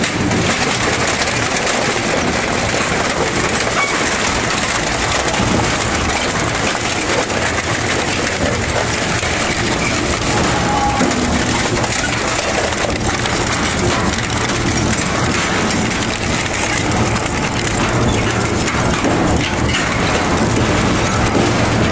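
Twin-shaft shredder's toothed cutter discs crushing and tearing scrap, including framed panels, a bicycle wheel and wire. The result is a continuous dense grinding full of cracks and snaps over a steady low hum.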